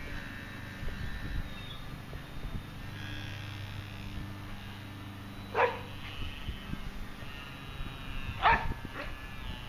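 A dog barks twice: one sharp bark about five and a half seconds in, and another near the end with a quick second yelp after it. Underneath runs the faint, steady high whine of a small electric RC plane motor and wind rumble on the microphone.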